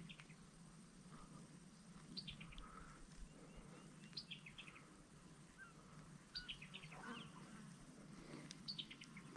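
A songbird singing faintly: a short phrase of quick notes that step down in pitch, repeated four times about two seconds apart.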